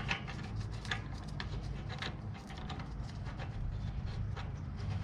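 Light scattered metal clicks and taps as the hub's locking hardware is handled and fitted, over a steady low hum.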